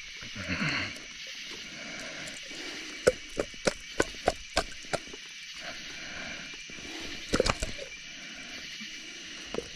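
A steady high chorus of night insects and frogs, over which come handling knocks and clicks as a flathead catfish is unhooked from a limb line in a boat: a run of about seven sharp clicks at roughly three a second in the middle, then a short cluster of knocks near the end.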